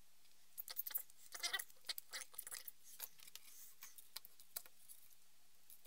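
Faint, irregular light clicks and rustles of small electronic parts and tools being handled on a wooden workbench, thinning out after about four and a half seconds.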